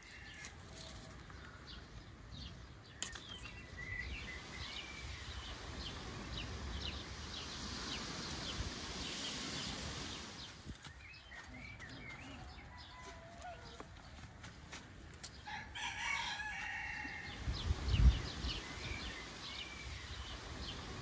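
Outdoor village farmyard ambience: small birds chirping on and off, with a rooster crowing about two-thirds of the way through. A brief low thump comes shortly after the crow.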